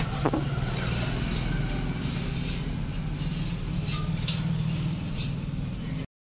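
A steady low mechanical drone, like an engine or motor running nearby, with a few light clicks and scrapes from a spreader working body putty onto a metal fuel tank. The sound cuts off suddenly near the end.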